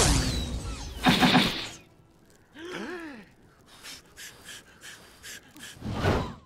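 The rumble of a big explosion dies away, followed by a short loud burst. Then comes a gasp-like vocal with rising and falling pitch, a run of short crackles about four a second, and a louder firework-like burst near the end before the sound cuts off suddenly.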